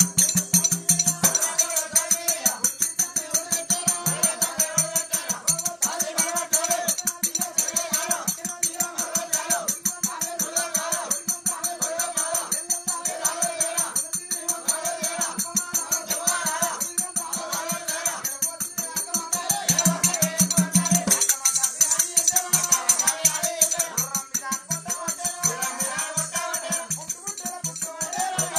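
Live folk music: a fast, steady beat of jingling, rattling percussion with singing over it.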